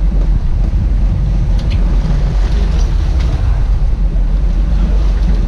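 Boat under way: a steady low engine drone with wind buffeting the microphone.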